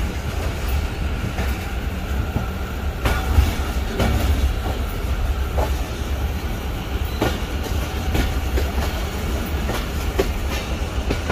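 A moving passenger train heard from on board: a steady low rumble with a few sharp clacks of the wheels over rail joints, about three and four seconds in and again near seven seconds.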